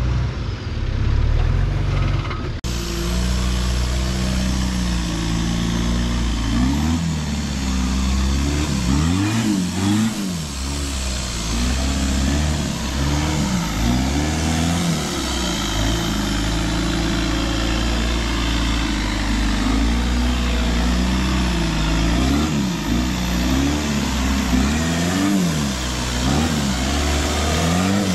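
Off-road 4x4 engine under load. There is an abrupt change about two and a half seconds in. After it, a lifted pickup's engine revs up and drops back again and again, about every second or two, as it crawls up a steep rocky climb.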